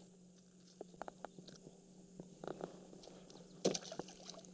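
Quiet handling noise from unhooking a bass with pliers in a kayak: scattered light clicks and taps, and a louder short rustle about three and a half seconds in, over a faint steady low hum.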